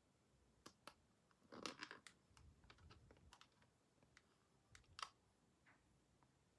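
Faint, scattered clicks and taps with a short rustle, as of plastic toy packaging being handled and opened, the sharpest click about five seconds in.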